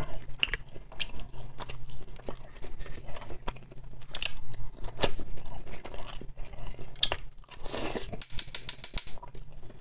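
Close-up chewing and wet mouth sounds of a man eating oven-baked potato and pork neck. Near the end comes a quick run of sharp clicks.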